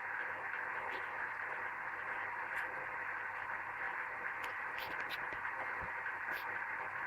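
Bendix 7147A washing machine running mid-cycle: a steady hiss with a few faint light clicks in the second half.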